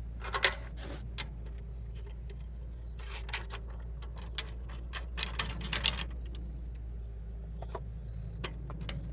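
Scattered clicks and light knocks of woodworking clamps and wood being handled while setting up a glue-up clamp, over a steady low hum. The loudest click comes about half a second in, with a cluster of clicks around five to six seconds.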